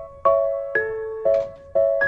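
Soft background music: a gentle electric-piano-style melody, chords struck about twice a second, each fading before the next.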